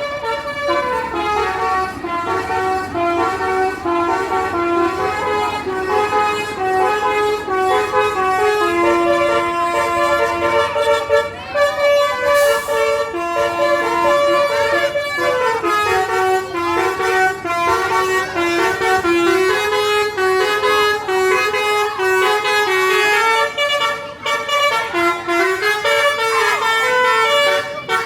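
Multi-tone 'telolet' bus horns playing a tune in quick stepped notes, the horns of two buses sounding in a duet. A short hiss about twelve seconds in.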